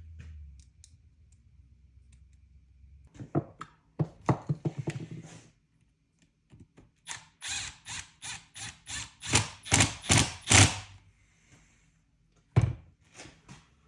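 Hand tools and metal engine parts clicking and knocking as a part is fitted back into a Yamaha YZ250 engine during a rebuild: a few clicks about three to five seconds in, a quicker run of sharper clicks from about seven to eleven seconds, and one knock near the end.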